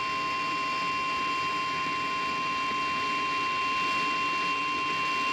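Weather-radio Emergency Alert System warning alarm tone: a single steady high-pitched tone held without a break over a constant hiss. It is the attention signal that comes after the alert data bursts and before a spoken warning, here a severe thunderstorm warning.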